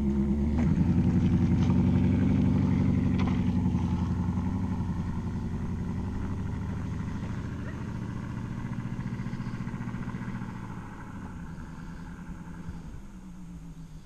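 2015 Chevrolet Camaro RS engine and exhaust as the car pulls away, picking up about half a second in, then fading steadily as it drives off.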